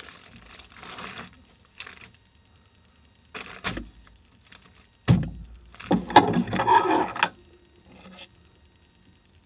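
Handling noise in short bursts: rustling and knocks as kitchen items are moved. The loudest is a dense clatter about six seconds in, lasting just over a second.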